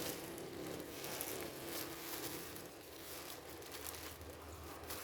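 Plastic parcel wrapping crinkling and rustling as it is handled, in irregular short crackles.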